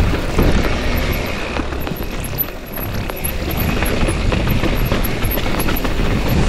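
Mountain bike riding over a wet, muddy singletrack: tyres on dirt with a steady rumble, and the chain and frame rattling and knocking over bumps, with wind on the microphone.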